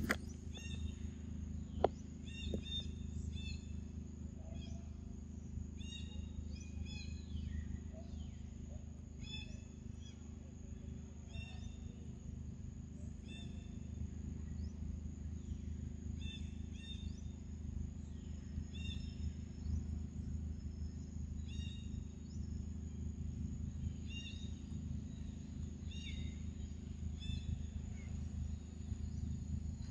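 Outdoor ambience: a bird gives short, pitched chirps over and over, every second or two, over a steady low hum and a thin, steady high tone.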